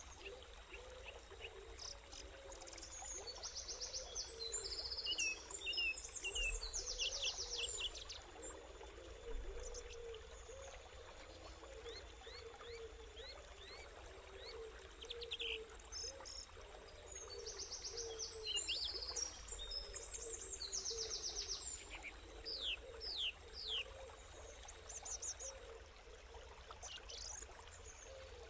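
Forest birds calling in two bouts of rapid chirping trills and short down-slurred whistles, over a steady low gurgle of running creek water.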